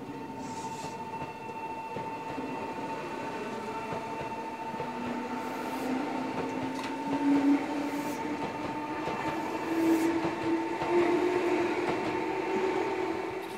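Meitetsu 1200 series electric train pulling out of the station and passing close by. Its motor hum rises slowly in pitch as it gathers speed, and the wheels clack over rail joints several times.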